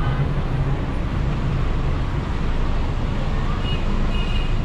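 Diesel truck engine running steadily at low revs from inside the cab as the truck rolls slowly.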